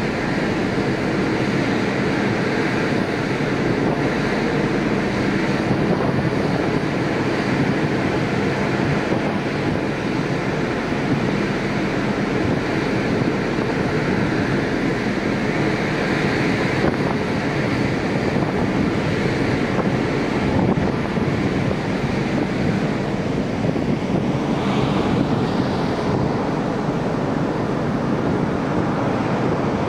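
Steady rush of wind on the microphone and sea wash from a passenger ferry under way, over a low steady drone from the ship's engines.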